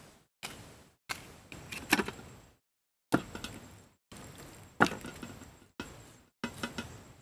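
Sharp knocks and taps of food preparation: a knife striking a wooden chopping board, and items handled on a metal tray. They come in several short bursts, each broken off suddenly by dead silence.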